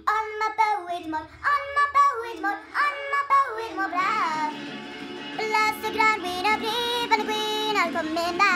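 A song: a high voice singing a melody over backing music, with held and gliding notes.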